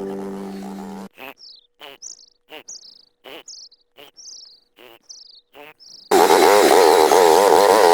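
A small bird calling over and over, a short high falling chirp with a click about every two-thirds of a second. Near the end a loud wavering sound cuts in suddenly.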